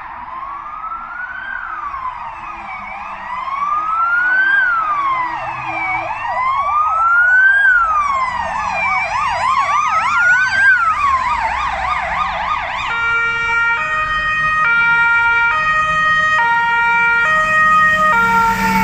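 Fire-brigade emergency vehicles' sirens passing on an emergency run. A slow rising-and-falling wail is joined by a fast yelp about eight seconds in. About thirteen seconds in, a two-tone siren stepping between high and low takes over, with a fire engine's low engine rumble near the end as it goes by.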